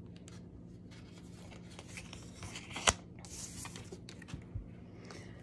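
Tarot cards being shuffled by hand: faint, scattered rustling and sliding of cards, with one sharp click about three seconds in.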